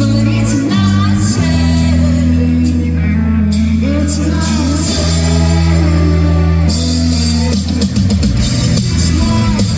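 Live rock band playing, with a woman singing over electric guitar and sustained bass notes; the drums and cymbals come in strongly about two-thirds of the way through.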